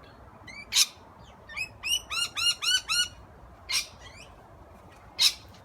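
Wild parrots calling: a quick run of short, arching whistled chirps, about six a second, broken by three loud, harsh screeches.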